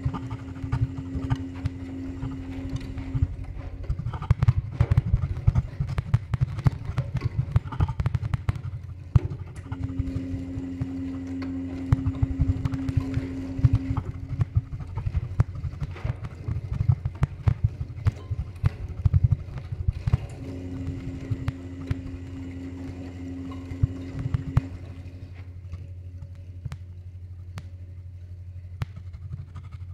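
Experimental improvised music for field recordings, percussion and electronics: a steady low rumble under a dense clatter of small taps and rattles that thins out near the end. A held mid-pitched tone comes in for about four seconds roughly every ten seconds.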